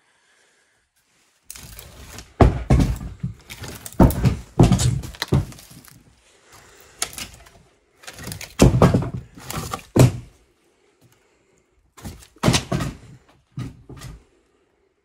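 Split firewood logs knocking and thudding against each other as they are shifted by hand, in several separate clattering bursts that start about a second and a half in.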